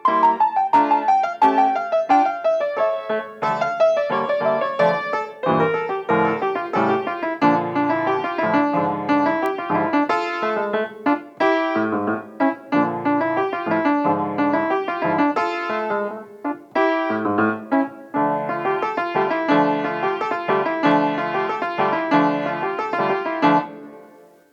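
Solo piano playing a fast piece. It opens with a descending run of single notes, then goes on in quick, busy notes and chords, and the last notes die away near the end.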